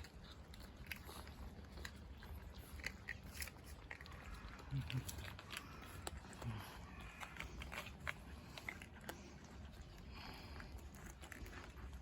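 Cats eating dry cat food: a run of small, irregular crunching clicks as the kibble is bitten and chewed.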